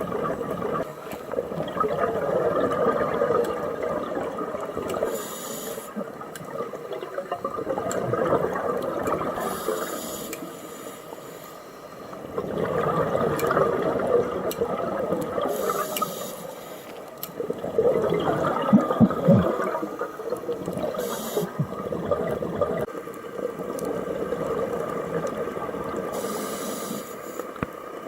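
Scuba diver breathing underwater through a regulator: a short hiss of inhalation about every five seconds, each followed by a long, gurgling rush of exhaled bubbles.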